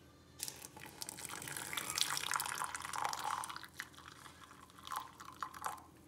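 Hot water poured from a kettle into a mug over instant coffee granules: a steady splashing pour starts about half a second in, tapers off after about three and a half seconds, and ends in a few last splashes and drips.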